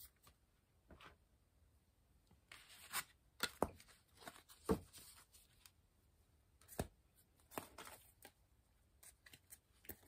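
Tarot cards being handled and picked up off a cloth-covered table: a scattering of faint, short rustles and clicks.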